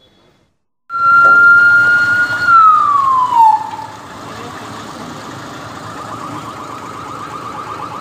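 Emergency vehicle siren. A loud steady tone starts suddenly about a second in, slides down in pitch a couple of seconds later, then a quieter steady warbling siren tone carries on.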